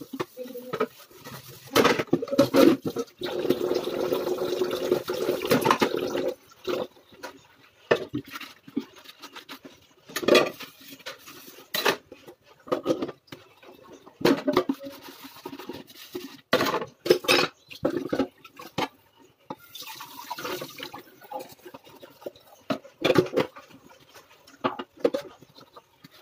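Dishes being washed by hand in a stainless steel sink: a sponge scrubbing ceramic plates and steel pots, with frequent clinks and clatters of crockery and steel utensils knocking together, and some water splashing. From about two seconds in, there are a few seconds of steadier scrubbing.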